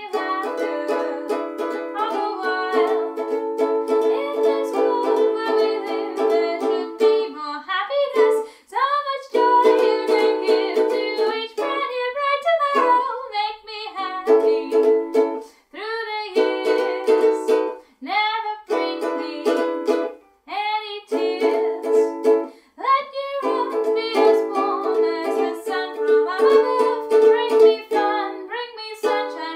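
A woman singing while strumming a ukulele, with a few short breaks between sung phrases.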